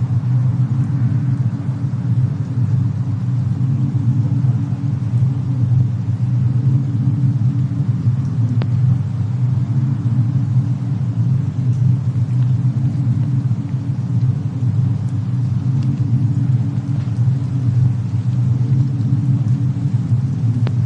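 A steady, loud low rumble from a winter-storm and fireplace ambience bed, with a few faint crackling ticks now and then.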